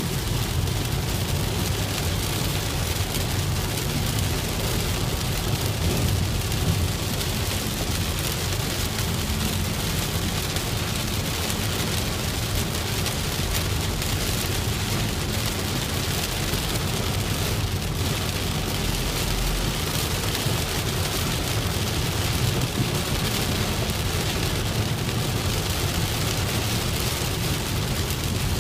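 Steady rain on a moving car, a constant hiss over a low, even rumble of the car's road and engine noise.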